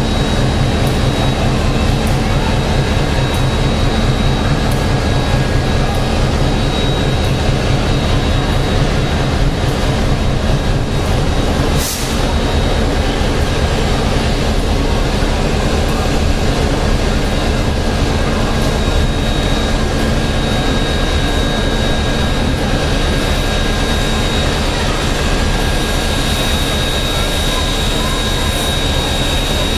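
Canadian National steam locomotive under steam, moving slowly onto and around a turntable: a steady hiss and rumble with a thin, high, constant whine. A single sharp click about twelve seconds in.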